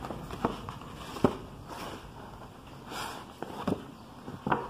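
Large paper dust jacket being unfolded and handled, rustling, with a few sharp crinkles.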